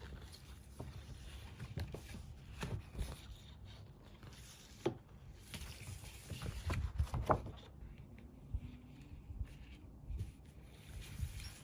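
Scattered taps, knocks and rustles of objects and packaging being handled by hand, over a low rumble. A cluster of louder knocks comes around the middle.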